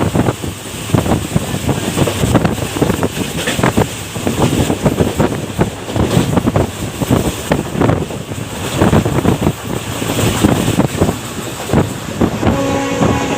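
Diesel-hauled express train running at full speed: a loud rushing, wind-buffeted noise with irregular clatter. Near the end the WDP4B locomotive's horn starts up, a steady chord of several notes.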